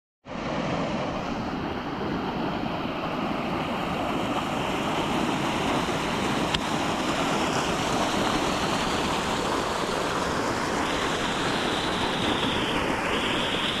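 Rain-swollen creek in flood, rushing over a concrete edge and churning into whitewater: a steady rush of water.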